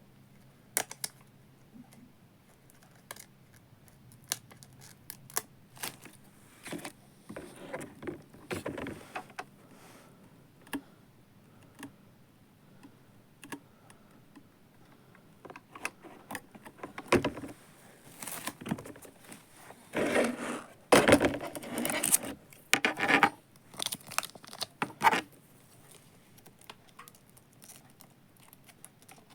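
Hands handling the small plastic parts of a Daiso robot vacuum: scattered clicks, scrapes and light clatter, busiest about two-thirds of the way through.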